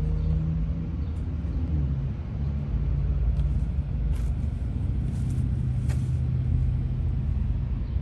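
Air-conditioning condenser unit running: a steady low hum, with a few faint ticks.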